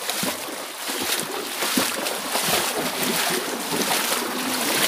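Water sloshing and splashing around legs as someone wades through a shallow, muddy stream, a continuous, uneven churning.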